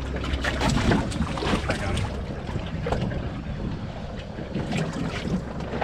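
Steady low rumble of a boat at sea, with wind buffeting the microphone and scattered short knocks and rustles.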